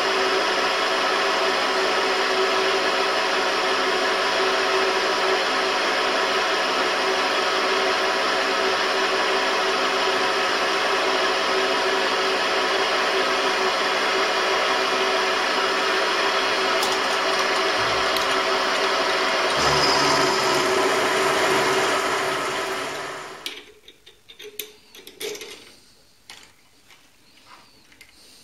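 Benchtop mini milling machine running steadily, its spindle motor whining as the end mill cuts an aluminium block while the table is fed by handwheel. Near the end the machine stops and the sound dies away, leaving a few light clicks.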